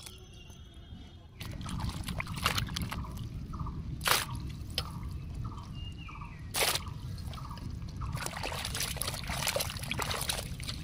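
Water sloshing and dripping as cut pieces of young green jackfruit are washed by hand in a steel pot of water, with a couple of sharp knocks.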